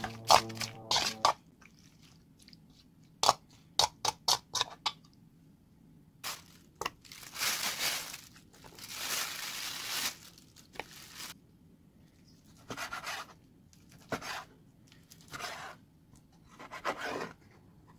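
Kitchen knife cutting raw pork belly on a wooden cutting board: a quick run of sharp taps of the blade on the board, then longer scraping strokes as the meat is sliced and pulled apart into pieces. Background music and metal clinking in the first second.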